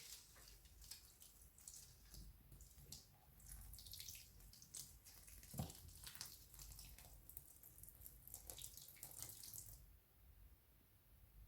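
Faint, irregular splashing of water being poured onto potted plants, stopping near the end.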